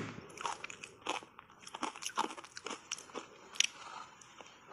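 Shaved ice coated in matcha powder being bitten and chewed close to a clip-on microphone: a run of irregular, sharp crunches, with one louder crack a little after three and a half seconds in.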